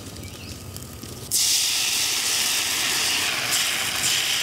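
Thin rice batter for neer dosa poured onto a hot, ghee-greased iron tawa over a wood fire. After a quieter first second, a loud sizzle starts suddenly and holds steady. The pan is hot enough to set the dosa properly.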